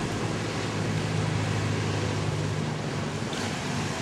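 An engine running steadily at a low hum, with wind and small waves breaking on a sandy beach. The hum changes near the end.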